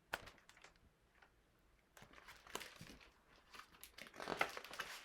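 Faint rustling and crinkling of paper pages being turned, in a few light scratchy strokes that come more thickly near the end.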